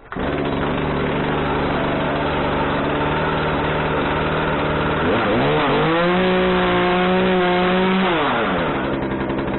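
Poulan P3314 33 cc two-stroke chainsaw engine starting at once with the choke off and running at a steady idle. About five seconds in it is revved up, held high for about two seconds, then drops back to idle.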